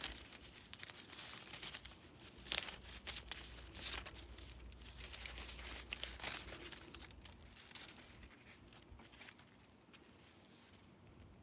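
Paper backing and clear film being peeled off an adhesive muffler patch, crinkling and tearing in irregular bursts that die down after about seven seconds.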